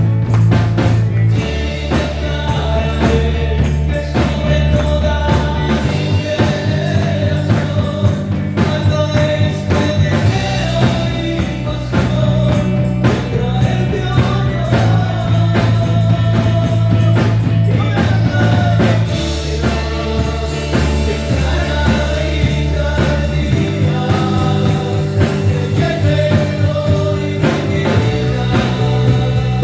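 Worship music with a full band and singing: sustained bass notes changing every few seconds under a steady drum beat, with a sung melody over it.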